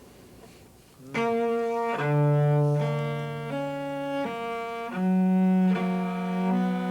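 A cello playing a slow passage of bowed notes, starting about a second in, the notes changing about once a second over a lower held note.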